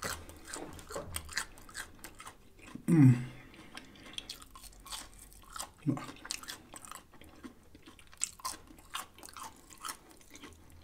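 Close-miked chewing of crispy fried okra: many quick crunches and wet mouth smacks. About three seconds in there is a loud, short, falling 'mm' from the eater's voice, and a shorter one near six seconds.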